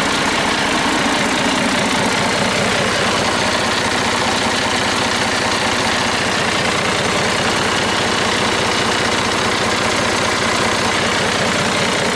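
Cummins QSM11 marine inline-six diesel engine running steadily at one speed, close up, with no rise or fall in revs.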